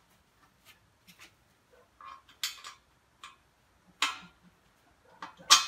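Metal clicks and clinks of the safety being fitted to the steel pin of a backhoe bucket quick-connect coupler: a few light ticks, a short scraping rattle about two seconds in, then sharper clinks, the loudest near the end.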